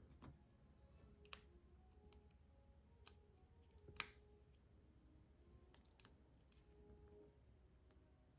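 Small parts of a folding knife clicking and ticking as they are handled and fitted during reassembly: a few faint ticks and three sharper clicks, the loudest about four seconds in.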